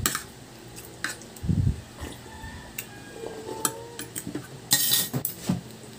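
Spoons and forks clinking and scraping on ceramic plates during a meal, a few separate clinks with a louder clatter about five seconds in.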